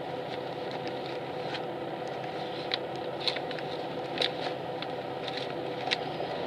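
Inside a highway coach that is standing or barely moving: a steady engine and ventilation hum, with a few light clicks and rattles.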